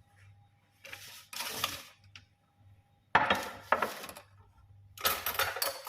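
Kitchen dishes and utensils being handled: several separate clatters and knocks, the sharpest about three seconds in.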